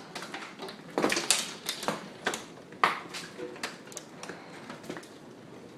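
Scattered hailstones striking hard surfaces: irregular sharp clicks and knocks, with a quick cluster about a second in.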